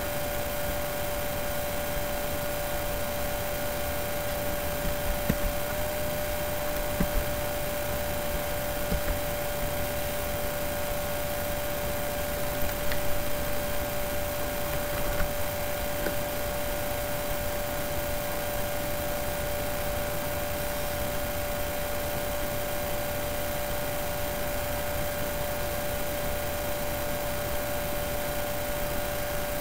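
Steady electrical hum over a constant hiss, recording-chain noise with no other source; a few soft clicks between about five and fifteen seconds in.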